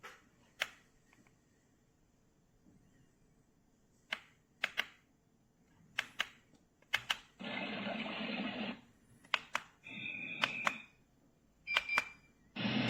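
Scattered sharp clicks and taps with three short bursts of rustling noise, the longest just past the middle, as a small device is handled.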